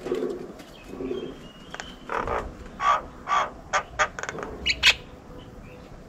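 A dove cooing low notes in the first second, then a run of loud, harsh bird calls and sharp short notes from about two to five seconds in.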